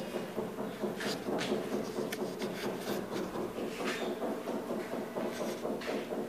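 Footsteps and rubbing handling noise from a phone carried by someone walking, with scattered sharp clicks and knocks over a continuous rustle.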